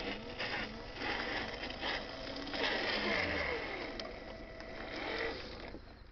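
Radio-controlled dump truck's small electric motor and gearbox whining and rising and falling in pitch as it drives, with its tyres crunching over dirt and stones. The sound drops away sharply near the end.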